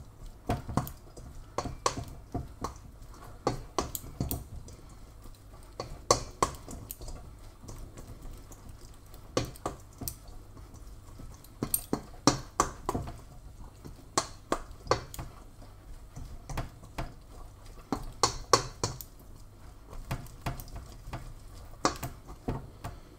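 A metal serving spoon stirring pasta, chicken and bacon with mayonnaise in a stainless steel saucepan: irregular clinks and scrapes of the spoon against the pan, coming in clusters with short pauses between them.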